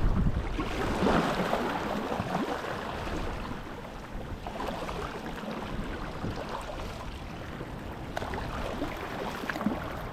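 Seawater washing against rocks, with wind noise on the microphone, making an even rushing sound that rises and falls a little.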